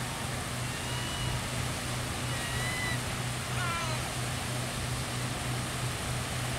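Small waves washing steadily onto a rocky shore, with wind noise. A few brief, faint high calls come about one to four seconds in.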